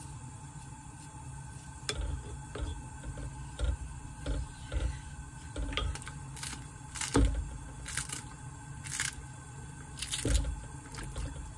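Kitchen scissors snipping a green chili pepper into a pot of stew, about five sharp snips in the second half. Lighter clicks and knocks of kitchen handling come before them.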